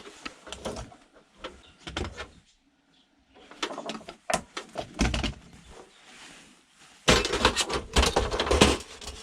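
Clicks, knocks and scrapes of a monitor's metal and plastic parts being handled during disassembly. The sound drops out briefly about three seconds in, then a denser, louder clattering starts near the end.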